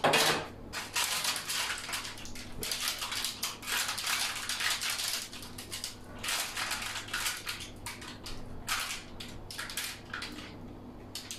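A plastic spatula scraping and prying a baked pizza loose from parchment paper on a baking tray: an irregular run of crackling and scraping.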